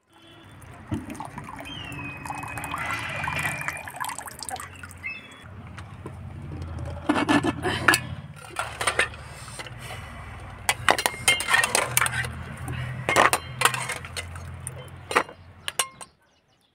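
Metal kitchen vessels and utensils clinking and knocking: a series of sharp strikes, mostly in the second half, over a low steady hum.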